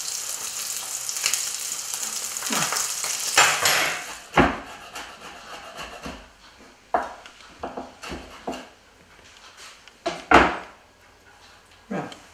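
A sea bass fillet sizzling steadily in a frying pan as it is lifted with a spatula. About four seconds in the sizzling stops, and about eight separate sharp knocks and taps follow, typical of a knife on a wooden chopping board.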